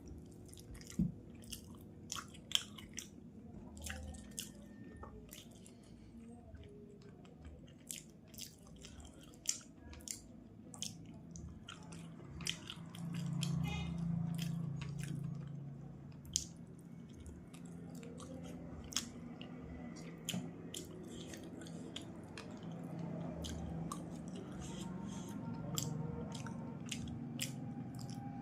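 Close-up eating sounds of fish curry and rice: wet chewing and lip-smacking with many small sharp clicks. A low hum runs for about three seconds midway.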